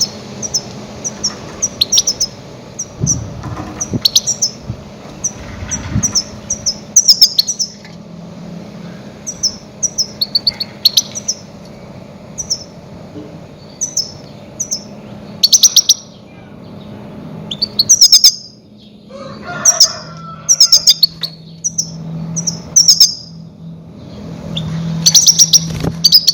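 Goldfinch giving loud, sharp chirping calls in quick clusters of several notes, repeated every second or two: a lure call for trapping grey-headed goldfinches. A faint steady low hum runs underneath.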